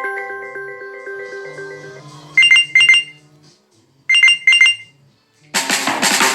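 Phone ringtones played back one after another. A chiming melody fades out, then a ringtone of short electronic beeps in pairs sounds twice, and near the end a fuller music ringtone begins.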